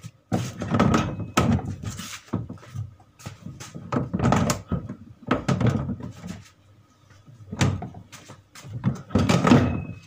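Irregular knocks and thuds on a twin-tub washing machine's plastic tub and cabinet as the tub is worked to seat a newly fitted motor that is not yet in place.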